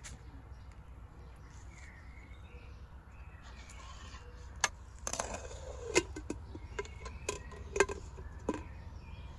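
Sharp metal clinks and a short clatter of a cooking pot and utensils being handled on a metal grill stand over a wood fire, starting a little past halfway, over a steady low outdoor background.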